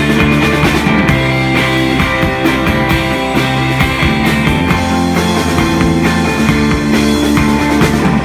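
Live rock band playing loudly: electric guitar chords ringing over a drum kit.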